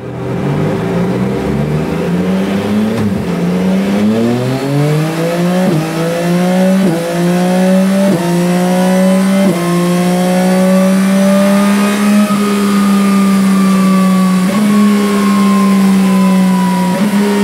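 2024 Yamaha MT-09's 890 cc inline three-cylinder engine, breathing through a Dominator aftermarket exhaust, pulling hard on a dyno run. The revs climb through the gears, with a quick drop in pitch at each of about six upshifts in the first ten seconds. It then holds high revs in top gear, peaking about two-thirds of the way through and easing off slightly near the end.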